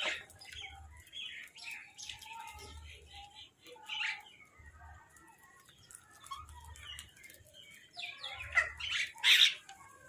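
Crows and mynahs calling together: a busy run of short chirps and harsh squawks, with a loud burst of calls near the end.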